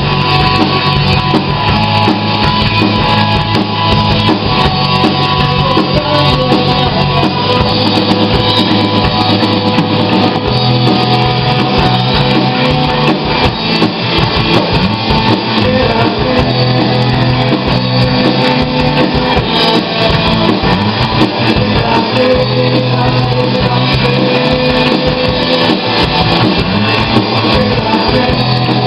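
A rock band playing live: electric guitar, bass guitar and drum kit keeping a steady beat together.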